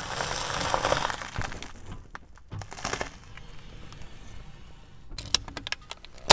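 Dry toasted bread slices crackling and crunching as a car tyre rolls over them and crushes them, a dense crackle for about two seconds, then another short crunch about three seconds in. A quick run of sharp clicks near the end.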